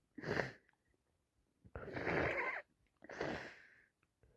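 Three harsh, noisy blasts through the congested, runny nose of a person with a heavy head cold: one right at the start, one near the middle lasting almost a second, and one soon after.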